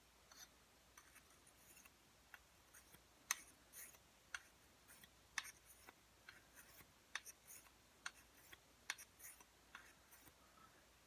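Faint, short scrapes and ticks of a dagger blade being stroked across an oiled sharpening stone, irregularly about two a second.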